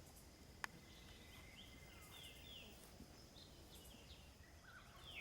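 A single sharp click of an iron striking a golf ball on a tee shot, then faint birds chirping in short, downward-sliding calls.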